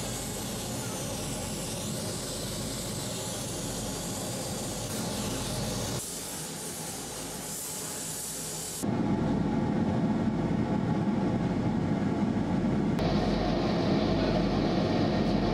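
Handheld gas torch flame hissing steadily while heating a small metal block on a brazing hearth. About nine seconds in it gets louder and fuller.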